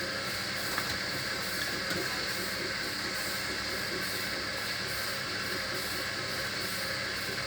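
Hoover washer dryer in its final spin: a steady motor whine over the rushing of the spinning drum. The machine is shaking a bit on a bouncy floor, and its spin speed may be held back by imbalance.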